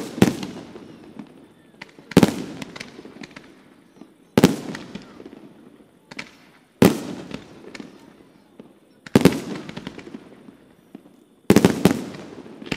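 Aerial firework shells bursting in a steady sequence, six loud bangs roughly every two and a quarter seconds, each followed by a fading rumble and echo, with lighter crackles in between.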